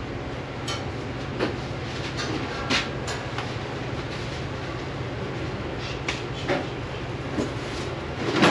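Steady low mechanical hum, with scattered short knocks and clicks.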